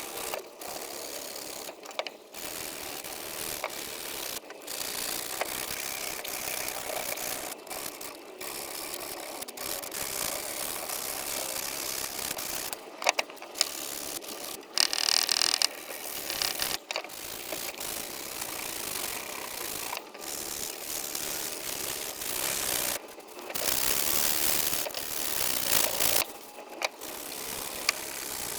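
A workshop tool working on an axe: a continuous mechanical rasping noise, stopping and starting many times for a moment.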